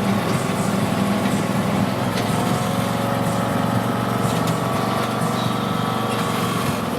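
Small engine of a children's ride-on park train running steadily.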